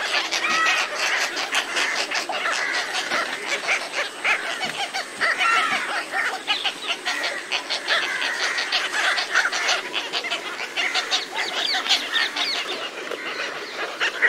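A flock of little cormorants calling, with many short calls overlapping into a continuous chorus that never breaks.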